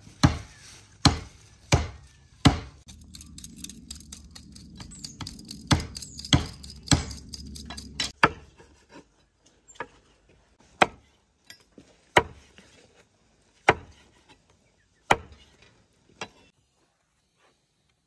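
Meat cleaver chopping pig trotters through the bone on a round wooden chopping block. There are about fourteen heavy chops at an uneven pace, closer together in the first half and more spread out later.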